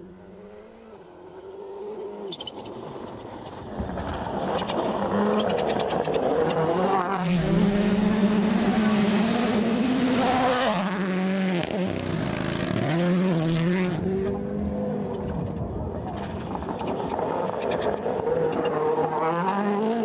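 Rally cars' turbocharged four-cylinder engines at full throttle on gravel, the pitch climbing and dropping again and again through gear changes and lifts as the cars pass. Faint at first, loud from about four seconds in.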